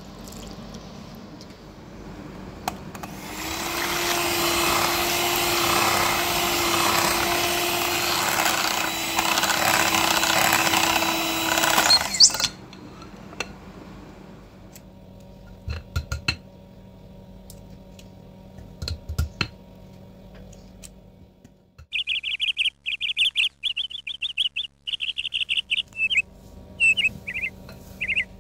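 Electric hand mixer running steadily for about nine seconds while it beats cupcake batter, then switched off. It is followed by a few light knocks and, in the last seconds, repeated short high chirps.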